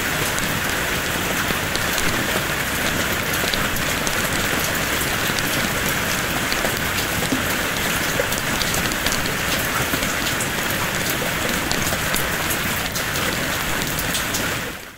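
Steady rain, a dense even hiss with many small sharp drop ticks scattered through it, fading out quickly at the very end.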